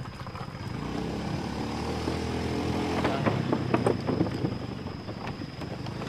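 Small motorcycle engine running at low speed while the bike rolls over a wooden plank footbridge, with a cluster of knocks and rattles from the boards under the tyres about three to four and a half seconds in.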